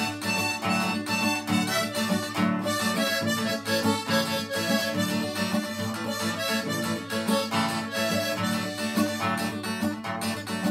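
Harmonica playing the melody over a strummed acoustic guitar, an instrumental break between sung verses.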